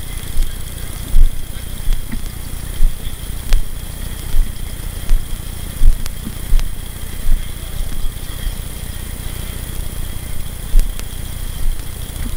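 Low wind and handling rumble on a helmet-mounted camera, with soft thumps about every three-quarters of a second from the wearer's footsteps that grow weaker after about seven seconds. A faint steady high tone runs underneath.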